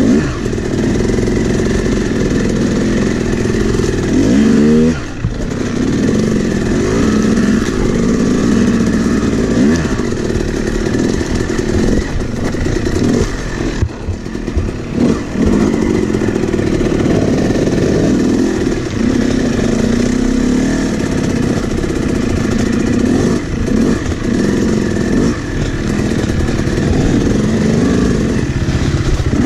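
Yamaha YZ250X 250cc two-stroke dirt bike engine revving up and down under throttle as it is ridden along a trail, with a quick rising rev about four seconds in.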